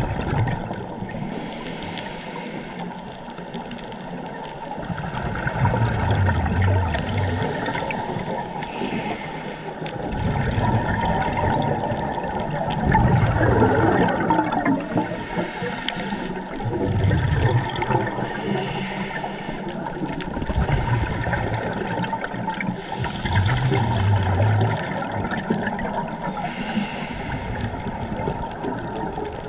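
Scuba diver breathing through a regulator underwater: a hiss on each inhale alternates with a gurgling rush of exhaust bubbles on each exhale, several breaths a few seconds apart.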